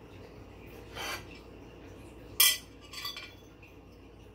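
Eating utensil on a plate: a short scrape about a second in, then a sharp clink about two and a half seconds in, with a fainter clink just after.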